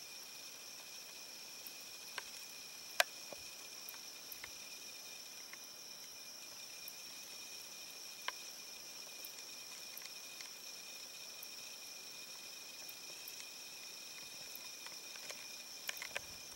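Steady, high-pitched trilling of an insect chorus, at two pitches at once. A few sharp clicks cut through it, the loudest about three seconds in.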